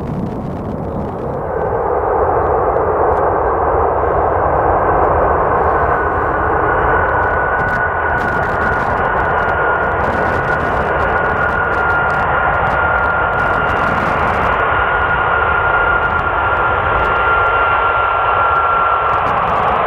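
Four Rolls-Royce RB211-524D turbofans of a Boeing 747-200 freighter running on the runway. The sound swells over the first couple of seconds, then holds as a loud, steady rumble with a high whine that slides slowly lower in pitch.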